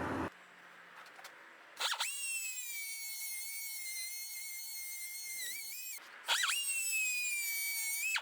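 Small power tool motor running at high speed, a high-pitched whine heard in two runs with a short break about six seconds in. The pitch sags briefly before the break, as when the tool takes load.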